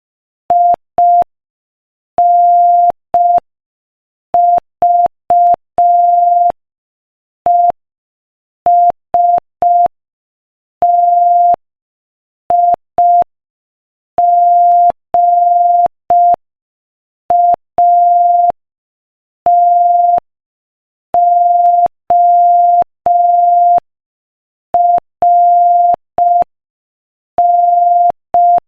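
Morse code sent as a single steady beep-like tone, keyed on and off in short dots and longer dashes with pauses between letters and words, at a slow 5 words per minute. A faint click marks each start and stop of the tone.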